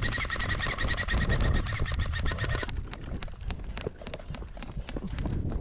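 A player running, with quick irregular footfalls and gear clattering. For the first two and a half seconds a pulsing high-pitched sound rides over it, then cuts off.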